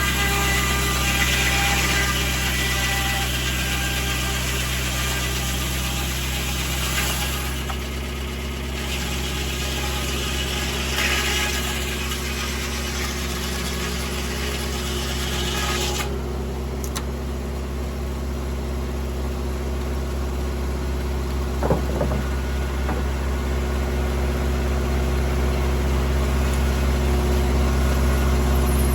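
Tractor engine running steadily, driving a circular sawmill. A rougher noise rides over it and cuts off sharply about halfway through, leaving the engine running on alone.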